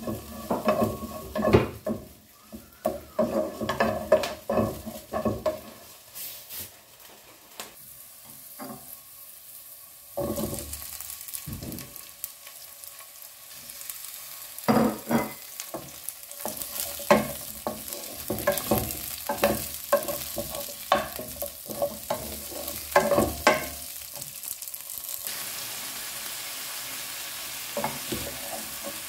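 Chicken wings and onions frying in a non-stick pan, sizzling, while a wooden spatula stirs and scrapes them, knocking against the pan again and again. The sizzle grows louder in the second half.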